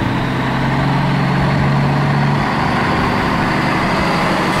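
Truck engine sound effect running steadily, dubbed onto a toy crane truck as it drives along. Its low drone shifts a little over halfway through.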